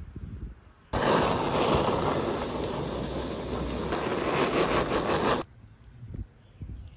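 A loud, steady rushing noise that starts suddenly about a second in and cuts off abruptly some four and a half seconds later.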